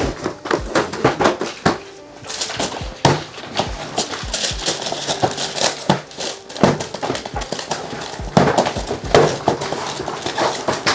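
Quick, irregular tapping and knocking from hand work at a fireworks-packing bench, a few strokes a second, going like typewriter keys.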